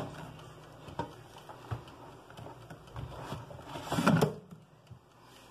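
Plastic basket of a Britânia air fryer being handled and slid into the fryer: a few light knocks, then a louder knock about four seconds in.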